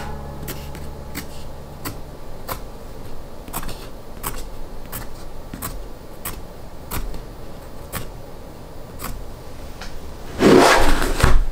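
Pencil tip tapping across the edges of a stack of paper-packaged pocket notebooks, one light click about every two-thirds of a second. Near the end comes a loud scrape lasting about a second as the stack is handled.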